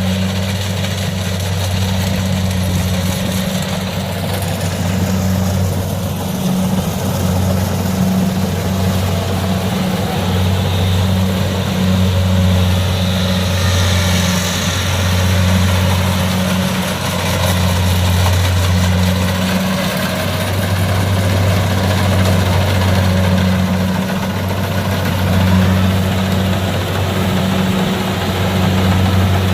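Kubota DC70 combine harvester's diesel engine running steadily, with a loud low drone that swells and eases every few seconds over the clatter of the machinery.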